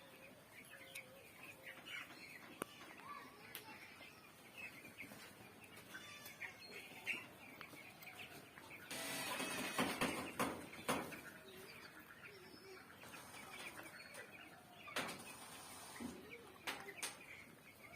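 Flock of young chickens in a poultry shed peeping constantly in short high chirps, with a louder burst of rustling and flapping about nine seconds in.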